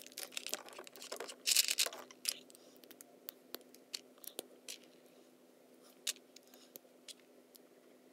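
Clear plastic parts bag crinkling in the first two seconds, then a scattering of small sharp clicks as Lego pieces are handled and pressed together.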